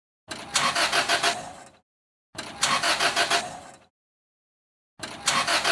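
Car engine cranking over without catching: three short tries of about a second and a half each, the starter turning the engine with a quick even pulsing. The engine won't start.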